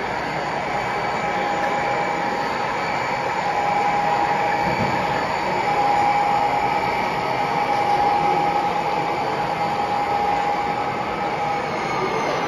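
Model diesel locomotive and freight train running past on the layout: a steady hum with a steady whine over it.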